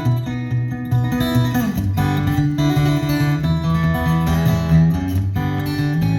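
Acoustic guitar being strummed and picked, with a steady bass line under changing notes.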